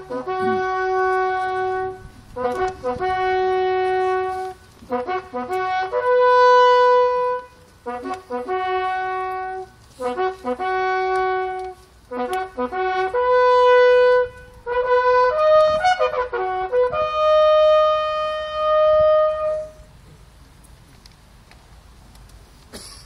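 A brass bugle call played solo: a slow run of long, separate notes stepping between a few fixed pitches, ending on a long held high note.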